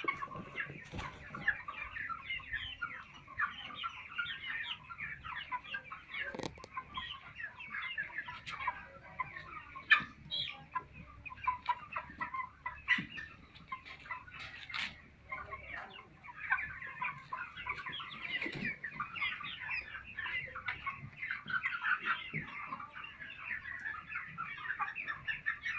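A large flock of chickens clucking and calling all at once, a continuous dense chatter of many overlapping voices, with scattered sharp clicks through it.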